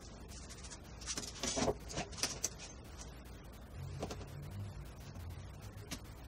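Leather sheath pieces handled and laid down on a wooden workbench: a short run of rustling scrapes and knocks, then soft low handling noise and a single click near the end.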